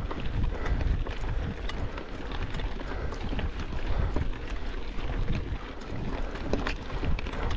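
Mountain bike ridden over rough ground, the tyres crunching and the bike rattling with many short clicks, under a steady rumble of wind on the microphone.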